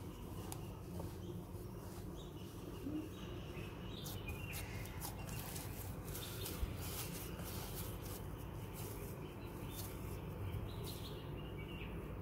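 Hands kneading a stiff dough in a glass bowl: soft squishing and many small sticky clicks as the dough is pressed and folded, over a steady low hum.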